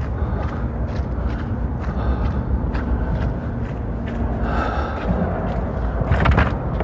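A man breathing hard after exertion, over a steady low rumble like wind on the microphone, with scattered knocks and a short clatter near the end.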